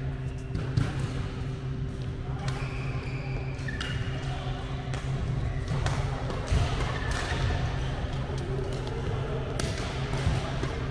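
Badminton rackets striking a shuttlecock as sharp hits at irregular intervals during a rally drill, with players' footsteps on the court floor, over a steady low hum.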